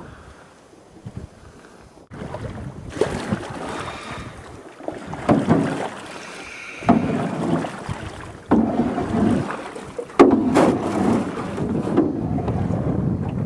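Wooden oar pulling through calm water beside a small rowboat: a splashy stroke about every one and a half seconds, starting about two seconds in.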